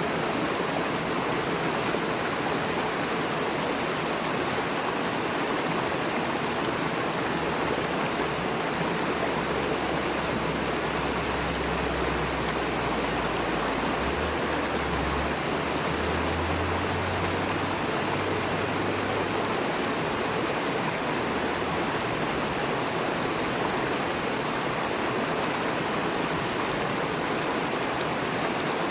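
Fast-flowing river rushing over rocks: a steady, even sound of water.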